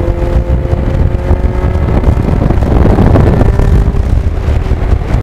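1989 Kawasaki Ninja GPX750R's inline-four engine running as the bike rides along, with heavy wind buffeting on the microphone. The engine note holds steady, then shifts about two seconds in.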